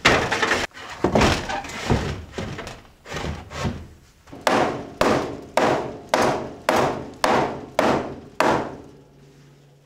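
Repeated hammer blows on a wooden framing board, about two strikes a second, knocking a tight-fitting stud upright into place; the blows stop near the end.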